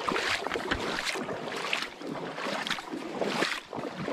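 Shallow seawater swishing and splashing around the legs of a person wading, in regular surges about once a stride.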